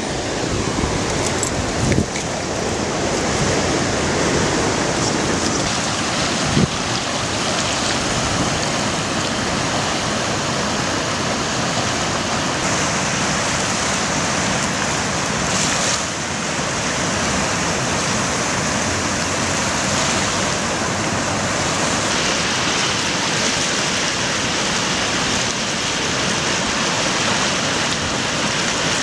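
Floodwater rushing through rapids in a normally dry desert riverbed, a steady, loud wash of noise. A brief knock sounds about two seconds in and another just before seven seconds.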